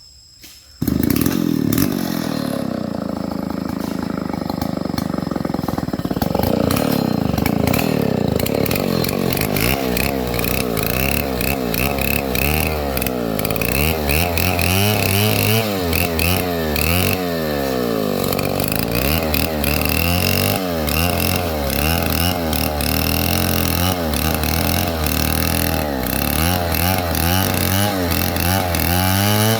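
Stihl 070 two-stroke chainsaw running, starting abruptly about a second in. It revs up and falls back again and again, its pitch rising and dropping.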